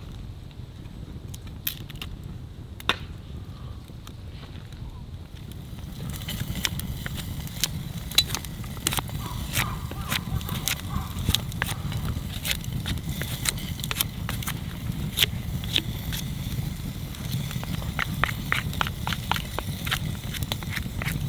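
Wood campfire crackling, with sharp pops over a low rumble; the pops become louder and much more frequent about six seconds in.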